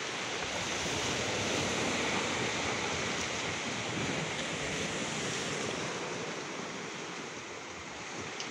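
Sea water washing and churning: a steady rush that swells slightly about two seconds in and eases toward the end.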